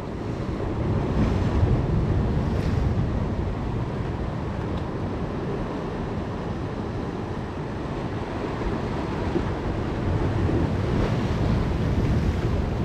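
Ocean waves washing against a rock wall, with wind buffeting the microphone. The surge swells louder about a second in and again near the end.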